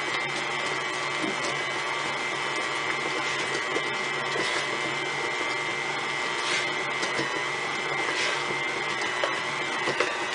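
KitchenAid tilt-head stand mixer running, its paddle beating thick cookie dough as flour goes in: a steady motor whine and hum, with a few faint taps.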